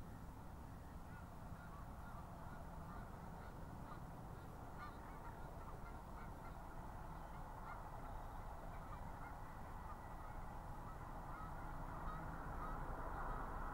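A flock of geese honking, many short overlapping calls that grow louder and denser toward the end, over a faint steady low rumble.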